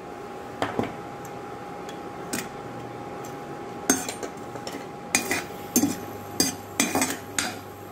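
Steel spatula clinking and scraping against a nonstick kadai while stirring cashew nuts and raisins frying in ghee. A few scattered clinks at first, then more often, about every half second, from about four seconds in, over a steady faint hum.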